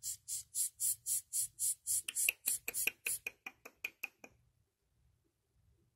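Sugar glider joey crabbing: a run of raspy, hissing pulses about three or four a second, turning squeakier about two seconds in and stopping a little after four seconds in.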